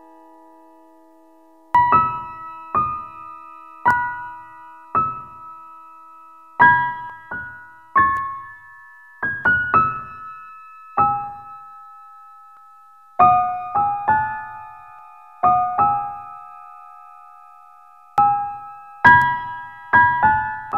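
Background music: a slow keyboard melody of single struck notes, each ringing and fading. A held chord dies away first, and the notes start about two seconds in, roughly one a second with some quick pairs.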